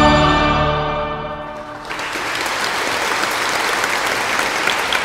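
The last held chord of the music fades away, and about two seconds in an audience starts applauding.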